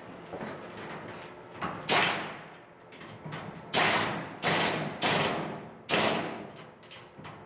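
A series of about six sharp metal bangs and knocks at uneven intervals, each ringing briefly, from work on a sheet-metal tool chest.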